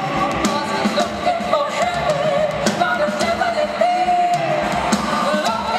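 Live rock band in concert, recorded from the audience: a woman sings lead over drums and electric guitar, holding one long note about four seconds in.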